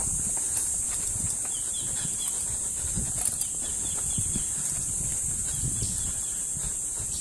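Mountain bike riding over a dirt singletrack: irregular low knocks and rattles as the bike goes over bumps, under a steady high hiss.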